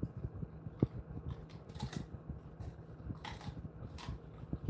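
Dog gnawing on a dried chew treat: irregular soft clicks and crunches, with a few brief sharper crackles about two, three and four seconds in.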